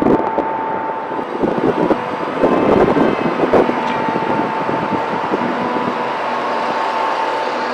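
Steady machine noise with a constant high whine, with rough irregular surges in the first four seconds.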